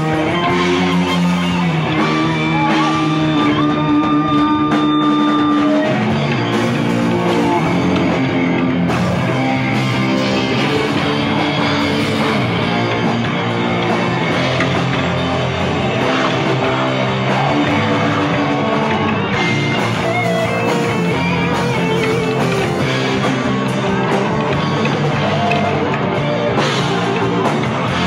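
Live rock band playing electric guitars with drums. Long held guitar notes at first, then the full band comes in about six seconds in and plays on.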